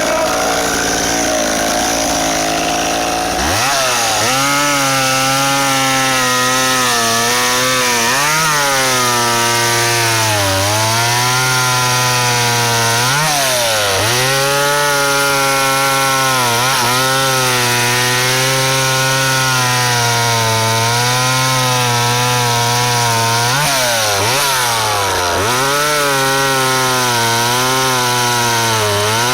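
McCulloch Mac 10-10 single-cylinder two-stroke chainsaw making its first cuts. It runs lower for a few seconds, then is throttled up sharply and runs at high revs. The engine pitch dips briefly several times as the chain loads up in the wood.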